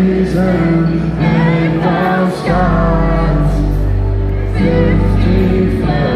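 Loud live rock band playing, with a male singer and electric guitar over heavy bass. The bass drops out briefly about two seconds in, then comes back.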